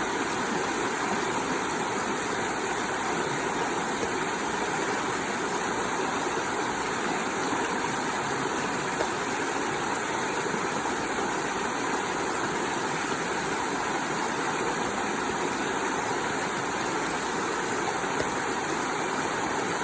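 Waterfall: water falling and rushing in a steady, even roar.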